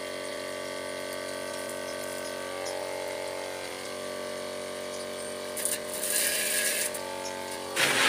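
A 12-volt DC mini water pump running with a steady hum while its water jet hisses. The spray noise grows louder about two-thirds of the way through, and turns into a loud rush near the end.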